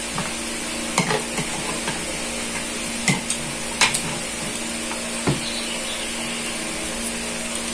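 Spoons clicking against a plastic bowl and plate while eating: a handful of short, sharp clicks, about 1, 3, 4 and 5 seconds in. Under them runs a steady hiss and low hum.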